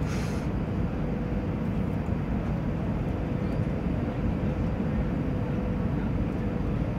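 Steady cabin noise of an airliner on final approach: a low, even rumble of engines and airflow, with a faint steady hum. A brief hiss sounds right at the start.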